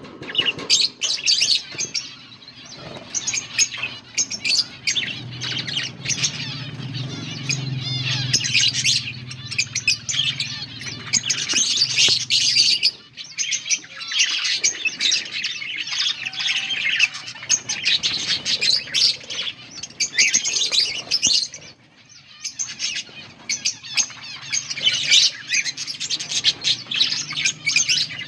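A colony of budgerigars chirping and chattering together, many birds at once in a continuous stream of short, high calls.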